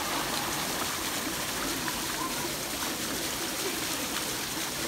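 Steady rushing water of a swimming pool, with faint voices in the background.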